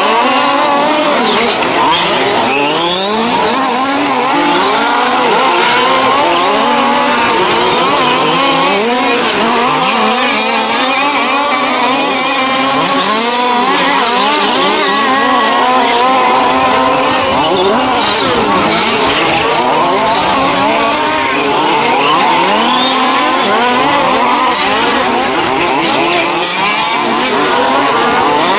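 Several 1:5-scale radio-controlled race cars with small two-stroke petrol engines running together, their engines revving up and down constantly and overlapping.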